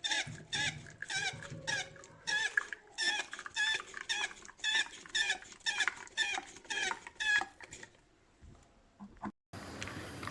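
Hand pump of a WACACO Minipresso GR portable espresso maker squeaking with each stroke as it is worked hard: a run of short, high squeaks with a wavering pitch, about two a second, that stops after about seven seconds.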